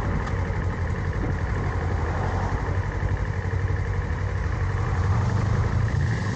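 Motorcycle engine running as the bike rides along at a steady pace, with wind and road noise over the microphone. The engine note grows a little louder around five seconds in.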